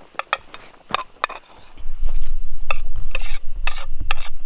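A spatula scrapes and taps against a steel frying pan of sizzling fish fillets and Brussels sprouts, with a run of sharp clicks. From about halfway through, a loud low rumble joins in.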